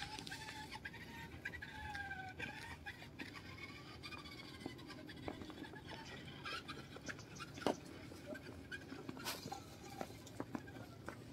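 Quiet outdoor background with faint gliding, bird-like calls in the first few seconds and scattered light clicks.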